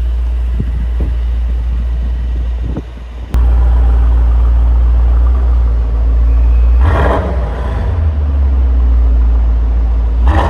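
Mercedes-AMG GT 63 4-door's twin-turbo V8 exhaust running with a deep, steady drone. It breaks off abruptly about three seconds in, then picks up again, with two brief louder surges near the end.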